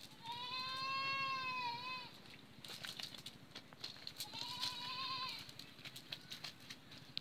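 An animal calling twice: a long, high call lasting under two seconds that rises and falls, then a shorter, wavering one, with light clicks and rustles in between.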